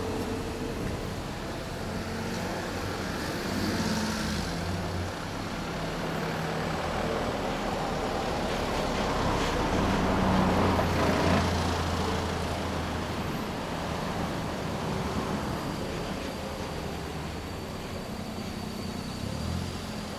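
Road traffic: motor vehicles passing with a low engine hum, the loudest going by about ten seconds in.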